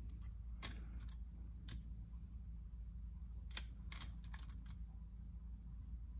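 Small ratchet wrench giving off a few faint, scattered clicks as it snugs down the cylinder head nuts of a small two-stroke engine, over a steady low hum.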